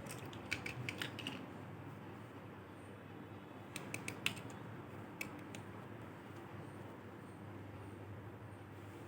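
Small hard plastic toy animal figures clicking and tapping as they are handled, in two short clusters of clicks with a single click after them.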